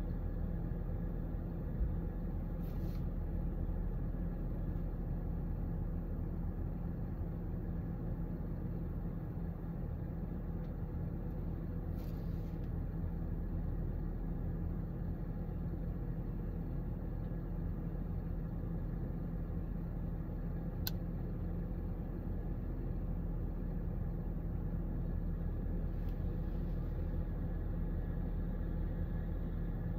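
Steady low hum of a parked car running, heard inside its cabin. A couple of faint rustles and one light click about two-thirds of the way through.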